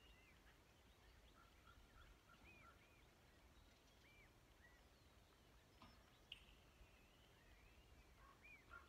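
Faint birdsong: scattered short arched chirps and a quick run of repeated notes, with a single sharp click about six seconds in.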